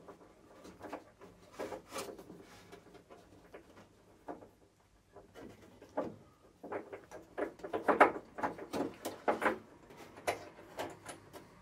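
Boot lock and its spring clip being worked by hand into a Triumph TR7's boot lid: scattered small clicks, taps and scraping of metal parts against the panel. The handling is sparse at first and busiest in the second half.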